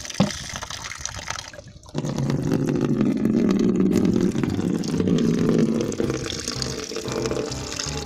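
Water from a tap pouring into a plastic bucket, starting suddenly about two seconds in and running on steadily as the bucket fills. A short knock comes near the start.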